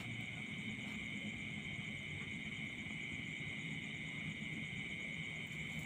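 Steady chorus of crickets and other night insects: a constant high-pitched trill, with a finer pulsing trill higher still, over a low background rumble.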